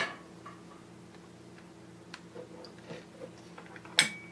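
Metal car-amplifier parts being handled and set down on a workbench: a sharp knock at the start and another about four seconds in, with light clicks and taps between.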